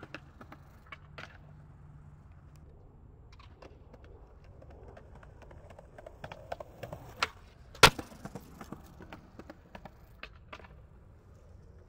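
Scattered light clicks and knocks, with one sharp, hard clack about eight seconds in, the loudest sound.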